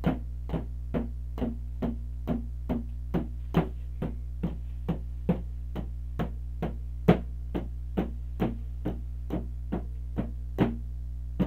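Sharp percussive taps at an even pace, a little over two a second, beating out a steady run of eighth notes for a rhythm-reading exercise; a few strokes land louder than the rest. A low steady hum runs underneath.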